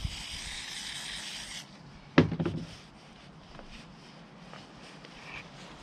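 Aerosol spray can hissing steadily onto a brake caliper part held in a rag, cutting off sharply about a second and a half in. A sharp knock follows as the can is set down on the bench, then light rustling and clicks of the rag being handled.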